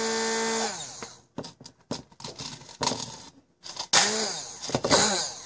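Small electric grinder's motor grinding snacks: a steady hum that winds down in the first second, then scattered clicks, then a few short pulses that each rise and fall in pitch as the motor spins up and stops.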